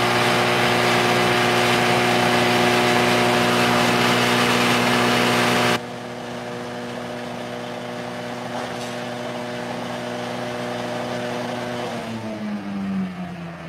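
Supari (areca nut husk) grinder machine running, a steady hum under a loud rushing grind. The rushing noise cuts off abruptly about six seconds in, leaving the hum. Near the end the machine slows, its hum falling in pitch as it runs down.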